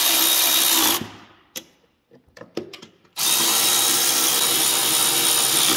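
Power ratchet running bolts down on a snowmobile's chaincase cover: a steady whir that stops about a second in, a few light clicks, then a second run of about two and a half seconds.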